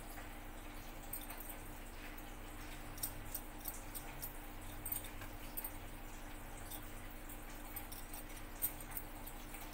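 Hands rolling wheat dough into balls for poori and setting them on a steel plate: faint scattered clicks and ticks, with one sharper click near the end, over a low steady hum.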